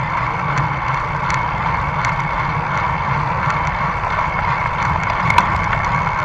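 Steady rumble and rush of travel noise, road and wind, picked up by an action camera mounted low on a vehicle riding along a paved road. A few faint clicks, with one sharper click about five seconds in.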